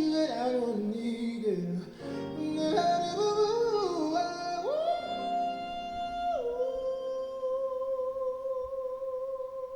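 A sung vocal with backing, played back through Mission QX5 tower speakers and heard in the room: quick melodic runs, then a long held note from a little past the middle that fades away at the end.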